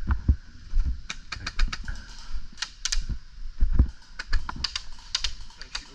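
A quick, irregular run of sharp clicks and snaps, several a second, over low thumps.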